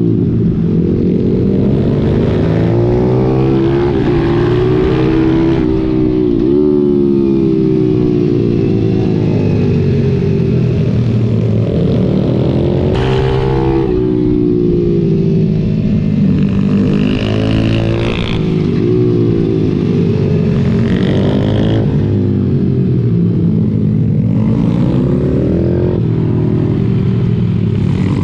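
Pit bike's single-cylinder four-stroke engine heard onboard while racing, the revs climbing and falling over and over through gear changes and braking for corners, with other pit bikes close by.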